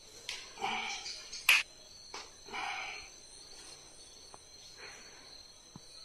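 Crickets trilling steadily, with a single sharp crack about a second and a half in.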